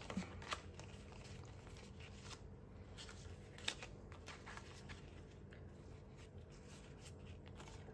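Faint rustling and a few scattered light ticks of Australian polymer banknotes and paper cash envelopes being handled, over a faint steady hum.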